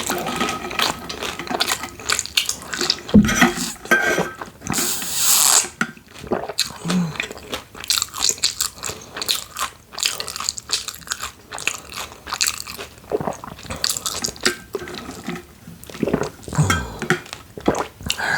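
A person chewing and biting food close to the microphone: repeated wet smacking and crunching mouth sounds, with a brief hiss about five seconds in.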